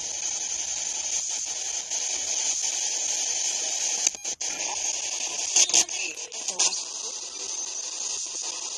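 Steady radio static hiss from a ghost-hunting spirit box, with a short crackle and drop-out about four seconds in and a couple of sharp clicks about a second and a half later.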